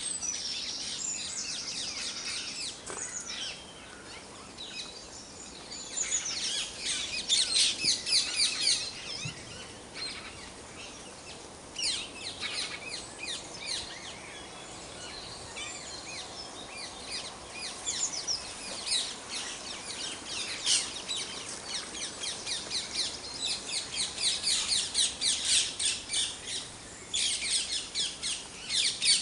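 Dawn chorus: several songbirds singing at once, their rapid high chirps and trills overlapping and swelling into louder bursts of song now and then.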